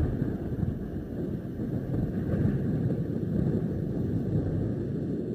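Audience in a hall applauding and cheering, heard as a dense, steady low rumble.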